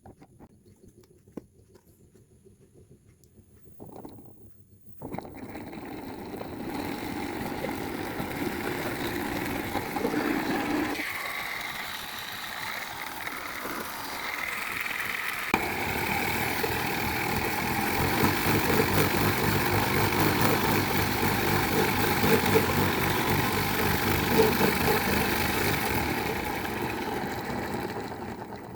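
A 775 DC motor machine starting up suddenly about five seconds in and running steadily, its sound changing a little twice along the way before it dies down near the end.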